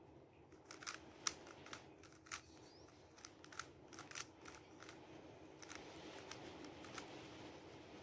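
Faint plastic clicks of a 3x3 Rubik's cube's layers being turned by hand. About a dozen sharp, irregular clicks come in the first half, then a quicker run of softer clicks near the end.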